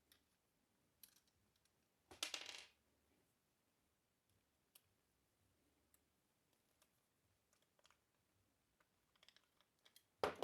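Small metal parts of a Sheridan PGP paintball marker being handled during disassembly: scattered light clicks and one short metallic clatter about two seconds in, otherwise near silence.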